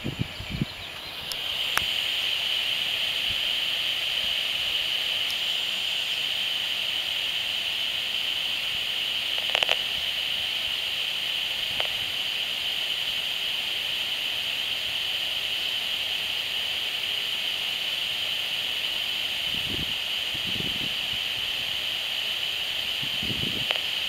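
Audio output of a handheld HF35C RF analyser held at a smart electric meter: a steady high hiss broken by a few short buzzes, the meter's RF transmission pulses made audible. One buzz comes a couple of seconds in, a stronger one about ten seconds in, and another near the end.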